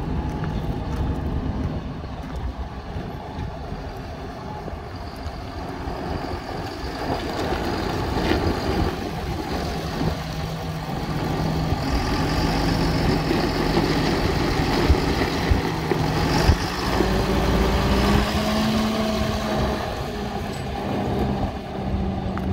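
A John Deere 7830 tractor's 6.8-litre six-cylinder diesel engine running as the tractor drives past on a test drive. It grows louder as the tractor comes closest in the middle, the engine note rises a little about three-quarters through, and the sound eases as the tractor pulls away.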